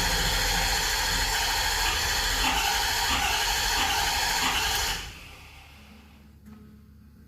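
The starter cranking the 6.7 L Powerstroke V8 diesel of a 2011 Ford F250 with a steady whirring drone. The engine does not fire, and the cranking stops abruptly about five seconds in. The owner suspects low fuel pressure from a failing CP4 injection pump or fuel system.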